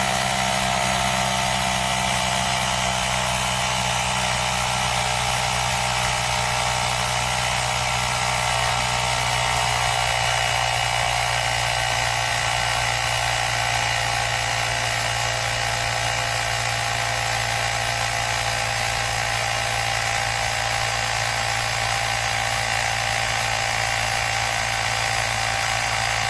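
Cordless portable tire inflator (Nature Hero 150 PSI) running steadily and loud as it pumps a tire up to the set pressure, its pitch sinking slightly over the first few seconds as the compressor takes on load.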